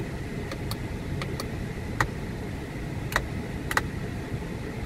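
Overhead map-light push-button switches in a car's roof console being pressed: several sharp clicks, the strongest about two seconds and three seconds in, the last a quick double click, over a steady low rumble.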